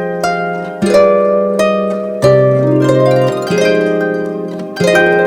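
Background music of plucked harp-like notes in chords, each chord struck and left to ring, roughly one a second.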